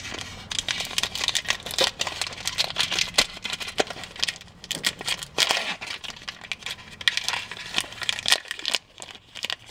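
Foil wrapper of a Pokémon trading card booster pack crinkling as it is handled and torn open by hand, dense irregular crackles that ease off briefly near the end.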